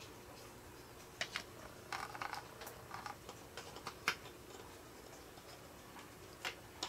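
Small resin figure parts clicking and tapping as mushroom pieces are pushed into place on the figure. Scattered light clicks, the sharpest one about four seconds in.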